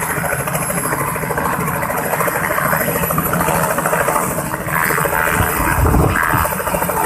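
Light helicopter running on the ground with its main rotor turning, a steady rapid beat of engine and blades. About five seconds in it grows louder with a deeper rumble as it powers up for takeoff.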